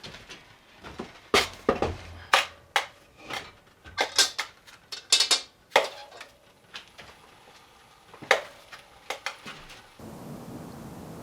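Dishes and utensils clattering: an irregular run of sharp clinks and knocks. About ten seconds in it gives way to a steady hiss.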